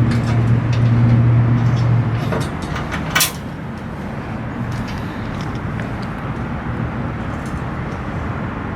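A steady low motor hum that fades out about two seconds in, over a constant rushing background noise, with a few light clicks and one sharp click about three seconds in.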